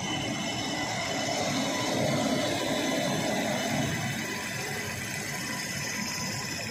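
WAP7 electric locomotive rolling slowly past as it pulls out: a steady rumble of the locomotive and its wheels on the rails, with a faint steady whine on top, swelling a little around two seconds in and easing off toward the end.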